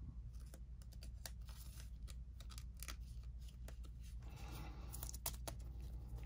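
Panini Prizm UFC trading cards being handled by hand: irregular light clicks and scrapes of card stock over a steady low hum.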